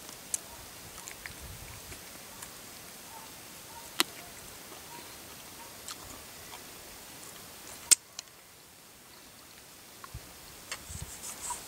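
Quiet background hiss broken by a few sharp clicks, the loudest about eight seconds in, after which the hiss drops lower; faint short chirps sound in the background.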